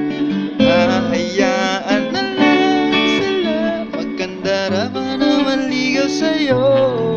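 Sunburst acoustic-electric guitar strummed in chords, with a voice singing a gliding melody over it.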